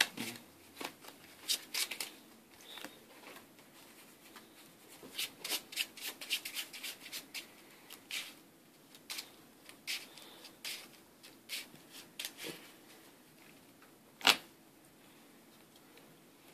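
Sleeved Yu-Gi-Oh cards being handled and shuffled: a run of quick, crisp flicks and rustles, busiest about five to seven seconds in. One sharp, louder snap comes near the end.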